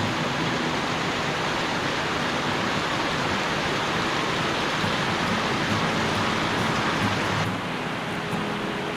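Steady rush of falling water from a creek or waterfall, with a hiss that thins out suddenly near the end.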